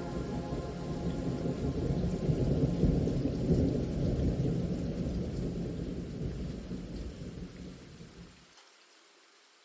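Thunder rumbling over steady rain, swelling a couple of seconds in and then slowly dying away. The deep rumble cuts off abruptly near the end, leaving only faint rain hiss.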